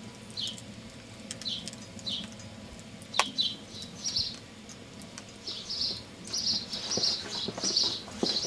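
Small birds chirping: short, high, downward-sliding chirps, spaced out at first and coming almost without a break in the second half. Beneath them is a low steady rumble, and there is one sharp crack about three seconds in.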